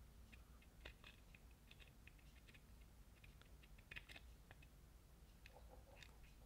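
Near silence with faint scattered small ticks and crackles, two a little louder about a second in and about four seconds in, as a soldering iron tip is rubbed over the solder joints on the clock's circuit board to reflow them.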